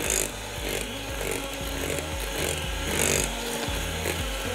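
Handheld electric mixer running steadily, its beaters creaming butter and sugar in a glass bowl until the mixture turns pale.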